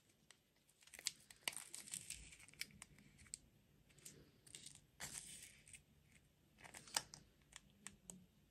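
Faint crinkling and tearing of plastic candy or dessert packaging, in scattered short crackles and clicks.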